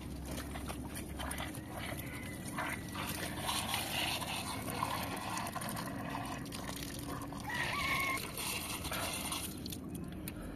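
Water trickling from a small pipe, with scattered clicks and taps from hands and a tool working on the pipe.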